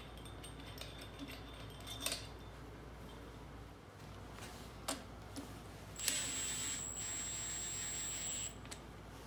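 Cordless power tool running for about two and a half seconds, with a steady high whine, as it drives a case bolt into the transaxle housing. It follows a few light clicks of metal parts being handled.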